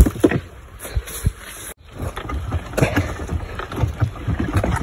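Handcart loaded with cut grass being pushed along a rough dirt track, rattling with a low rumble and irregular knocks.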